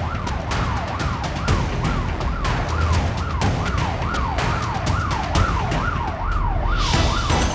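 Police car siren on a fast yelp, sweeping up and down about two to three times a second, over the low rumble of the pursuing car.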